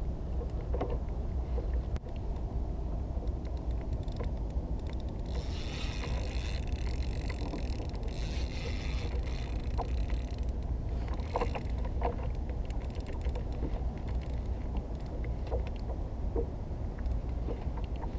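Spinning reel's drag buzzing for about five seconds, starting about five seconds in, with a shorter burst soon after: a fish, here a cobia, pulling line off against the drag. A steady low rumble runs underneath throughout.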